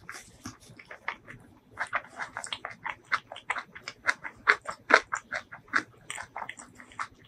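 Close-miked chewing of a mouthful of food with the lips closed: a quick run of small mouth clicks, sparse at first and busiest through the middle.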